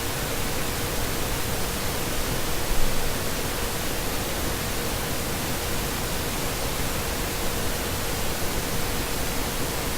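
Steady hiss of background noise with a faint, constant hum-like tone under it, and one small bump about three seconds in.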